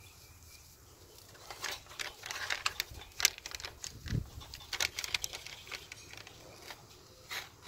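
Pink butcher paper wrapped around a pork butt crinkling and rustling under gloved hands, pressed and tucked on the grill grate. It comes as a quick run of crackles and light clicks starting about a second and a half in, with one more near the end.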